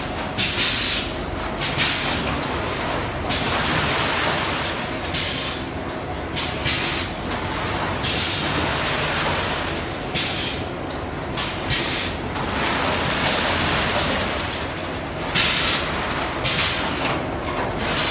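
Jigsaw puzzle die-cutting and packaging line machinery running: steady machine noise with frequent irregular sharp clacks and short hissing bursts.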